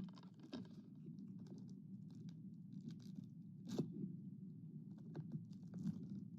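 Scattered small clicks and crinkles of a DVD box and its plastic being handled, the sharpest click a little past halfway, over a steady low hum.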